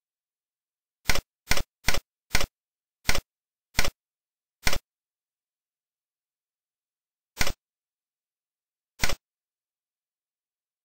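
Tux Paint's built-in button-click sound effect, played nine times as its buttons are pressed. Seven quick clicks come in the first five seconds, then two more spaced well apart, with dead silence between them.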